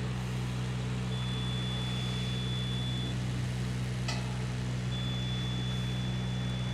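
The lift's engine running steadily at idle, a constant low drone. A faint high whine comes and goes twice, and a single sharp click sounds about four seconds in.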